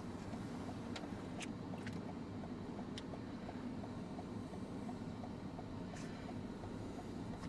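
Steady low hum of a car heard from inside its cabin, with a few faint clicks from a phone being typed on.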